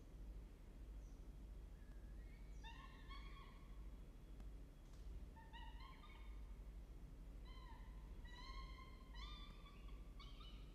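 Downy peregrine falcon chicks begging to be fed: thin, high, slightly rising calls in four short bursts over a low steady rumble.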